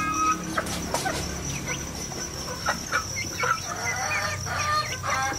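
Domestic hens clucking, a run of short calls one after another, over a steady high-pitched whine.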